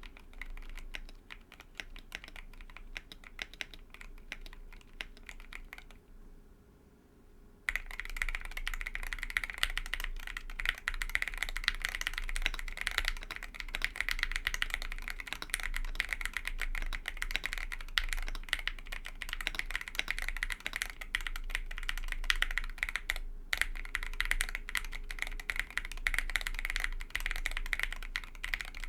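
Typing on a TOFU65 mechanical keyboard with Everglide Aqua King v3 linear switches (67 g springs), a polycarbonate plate and PBT keycaps: soft typing for the first several seconds, a short pause, then much louder, heavy typing with a fast patter of key strikes, broken once by a brief stop near the end.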